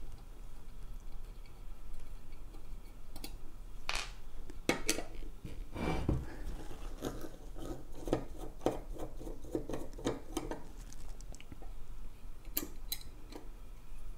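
Small metallic clicks, taps and scrapes of hand tools working on a CNC aluminium electric-unicycle pedal, as its screwed-on riser is taken off. The clicks come irregularly, with a few louder knocks.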